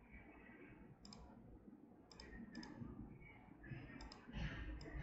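Faint computer mouse clicks, about five spread irregularly over the few seconds, over low room noise.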